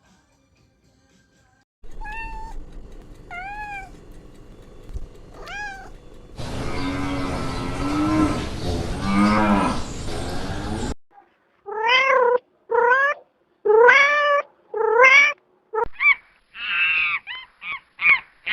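A domestic cat meowing: first three faint meows, then a loud, rapid run of short meows near the end. In the middle, a noisier stretch holds a lower, drawn-out animal call.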